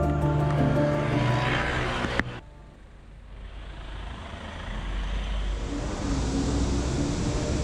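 Background music that ends abruptly with a click about two seconds in, followed by outdoor street noise: a low, steady rumble of distant traffic that slowly grows louder.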